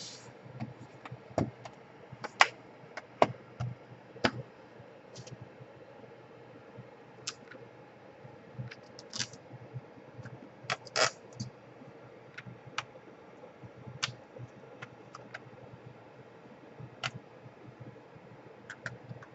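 Irregular clicks and light taps of small hard plastic and metal parts being handled and set down, the sounds of a laptop being reassembled by hand.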